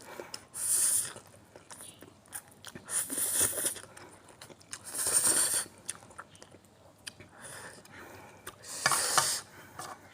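A person eating noodles close to the microphone: chewing, with four louder bursts of slurping spread through.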